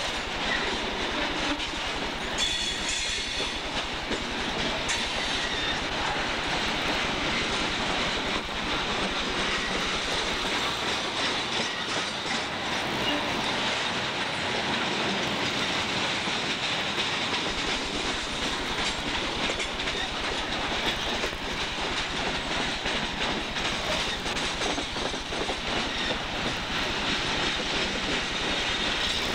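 Coal hopper cars of a freight train rolling past close by: a steady rumble of steel wheels on rail, with a run of quick clicks as the wheels cross the rail joints.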